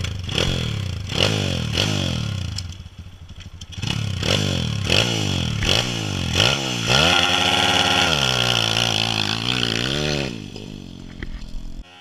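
Demon X 140 pit bike's four-stroke engine being blipped in quick repeated revs, then held at high revs for about three seconds with the pitch wavering, before dropping back near the end: the rider building revs for a race start.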